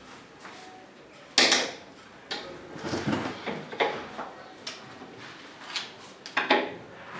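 Knocks and clatter of a particleboard shoe cabinet being handled and tipped onto its side, its flip-down compartments shifting. A sharp knock about a second and a half in is the loudest, followed by a run of smaller knocks.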